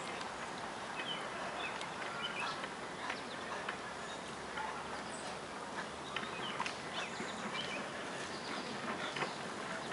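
Birds chirping now and then over a steady outdoor hiss, with scattered light clicks and scuffs.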